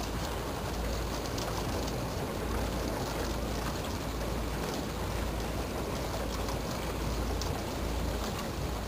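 Water rushing and churning along the hull of a motor launch as it breaks through thin lake ice, with scattered light clicks of ice shards and a steady low rumble underneath.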